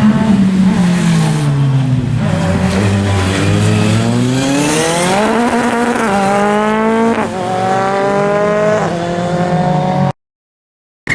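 Rally car engine, its revs falling as it slows, then accelerating hard with the revs climbing steeply and two quick upshifts in the second half.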